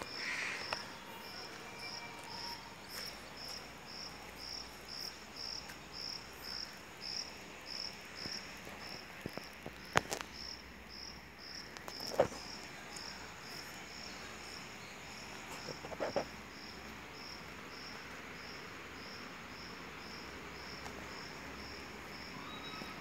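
An insect chirping in a steady high-pitched rhythm, about two to three chirps a second, fainter in the second half. A few sharp clicks or taps stand out near the middle.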